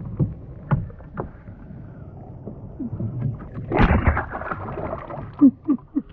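A small largemouth bass dropped over the side of a kayak into the water: a splash about four seconds in, the loudest sound. A few sharp knocks from handling come before it.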